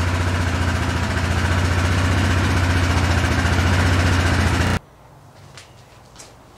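Yamaha Grizzly 660 ATV's single-cylinder four-stroke engine idling steadily, then cutting off abruptly just under five seconds in. A few faint knocks follow.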